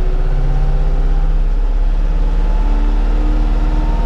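Bobcat compact tractor's diesel engine running, heard from inside the cab, its pitch climbing slowly as the throttle brings it up toward 2400 rpm.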